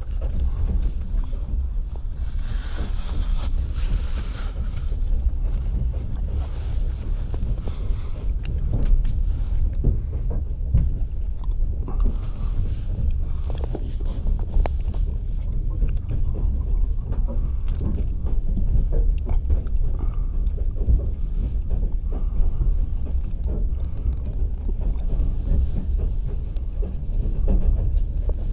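Passenger train carriage running at speed: a steady low rumble of the wheels on the rails, with scattered short knocks and a brief hiss about two to four seconds in.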